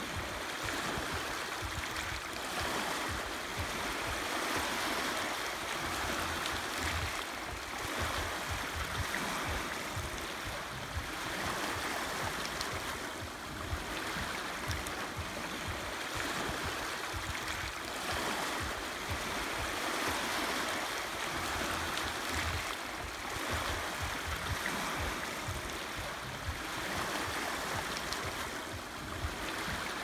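Small sea waves breaking onto a pebble beach and washing back over the stones, a steady foamy wash that swells and ebbs every three seconds or so.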